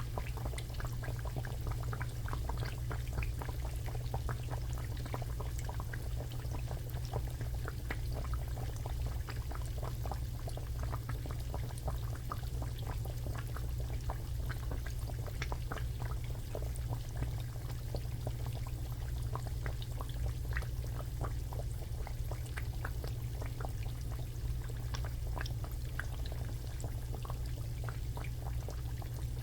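Food frying in hot oil, with many small irregular crackling pops over a steady low hum.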